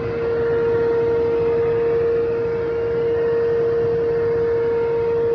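Sowing machinery running while stopped: a steady high whine over an even mechanical noise, from the one-pass power harrow and seed drill.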